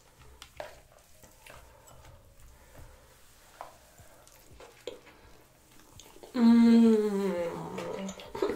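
Small clicks and wet crackles of king crab legs being handled and eaten, close up. About six seconds in comes a long hummed "mmm" of enjoyment that slowly falls in pitch.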